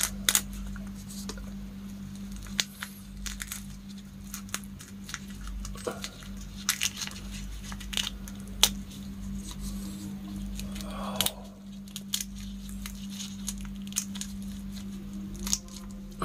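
Cooked giant freshwater prawns being peeled by gloved hands: irregular cracks and snaps of the shell, with crinkling of the plastic gloves, over a steady low hum.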